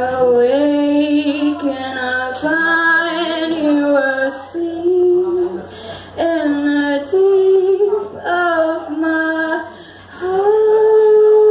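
A woman singing a slow melody live into a microphone, accompanying herself on electric guitar, in phrases with short breaks. Near the end she holds one long steady note.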